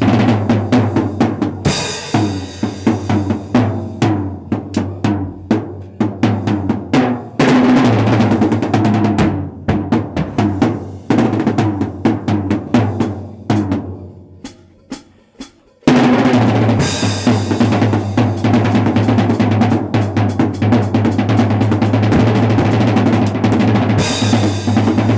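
Acoustic drum kit played in a fast solo: rapid snare and tom strokes over bass drum, with cymbal crashes. A little past halfway the playing thins to a few quiet strokes, then breaks back in suddenly with a loud, dense run and crashing cymbals.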